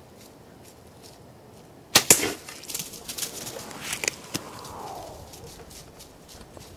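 A bow shot: two sharp cracks a split second apart about two seconds in, the string's release and the Swhacker broadhead arrow striking the deer. Then about two seconds of rustling and crashing as the hit deer runs off through dry leaves.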